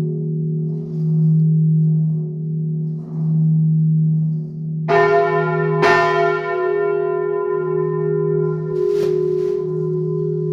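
Large swinging bronze church bells in the tower: a deep sustained hum that swells and fades about every two seconds. A clapper strikes about five seconds in and again a second later, then more faintly near nine seconds, each leaving a bright ringing tone over the hum.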